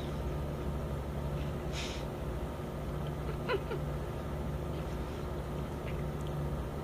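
A baby's short squeal about halfway through, with a brief breathy rustle before it, over a steady low room hum.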